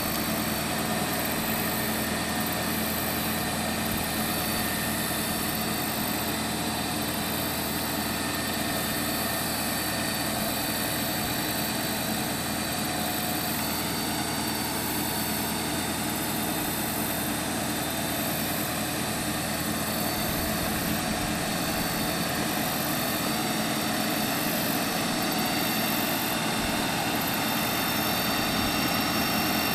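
Altec bucket truck running with its boom hydraulics working: a steady engine drone overlaid with steady whining tones from the hydraulic pump as the aerial boom is lowered and swung. It gets slightly louder near the end.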